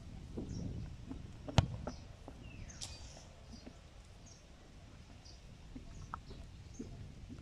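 Small birds chirping over and over in short high notes, with one sharp knock about one and a half seconds in and a few fainter knocks after it.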